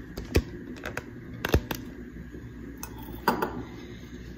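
Glassware and a bottle being handled on a kitchen counter: light clicks and three sharper knocks, about half a second, a second and a half, and three seconds in.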